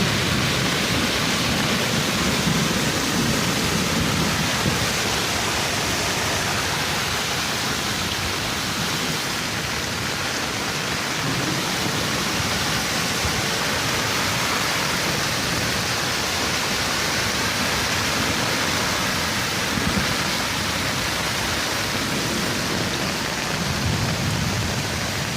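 Heavy rain pouring down in a steady hiss, with a low rumble near the start and again near the end.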